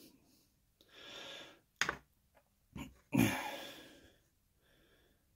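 A man breathing audibly twice, once about a second in and again, louder, just after three seconds, with a couple of short knocks in between from small plastic model parts being handled.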